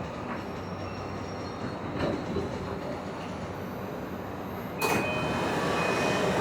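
Tokyu 3020-series commuter train running between stations, heard from inside the car as a steady rumble. About five seconds in it suddenly grows louder, with a thin high whine that holds.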